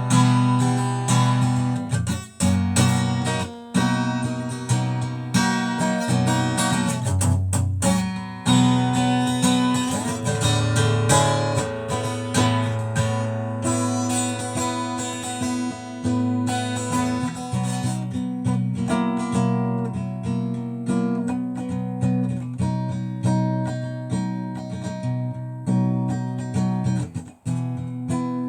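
Acoustic guitar strummed in chords, an instrumental stretch with no singing.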